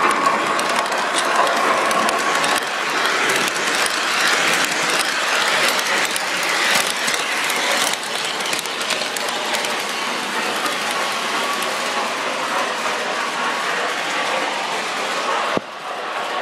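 Lionel O scale subway train running past on the layout track: a steady mechanical clatter of wheels and motors. The sound drops suddenly just before the end as the train moves away.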